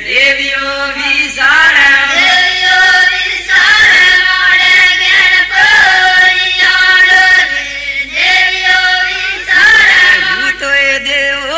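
A group of voices singing a devotional folk song in unison, held notes with sliding pitch in long phrases and brief breaks between them.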